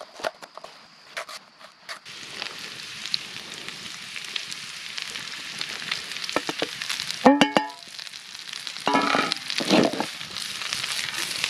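A knife chopping onion on a cutting board, sharp chops in the first two seconds. Then vegetables and sausage frying in a pan over a campfire, a steady sizzle, with two short metallic clanks from a metal bowl and tongs against the pan.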